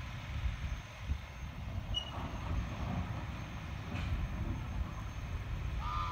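Wind buffeting the microphone: a low, uneven rumble. A brief high chirp comes near the end.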